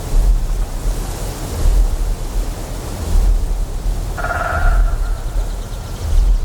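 Deep generator hum that swells and fades about every second and a half, over a steady hiss of flowing water. A short animal call sounds once about four seconds in.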